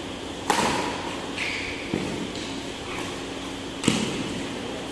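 Badminton rackets striking a shuttlecock in a rally: three sharp hits, the gaps between them about one and a half and two seconds, each ringing on briefly in the echo of a large hall.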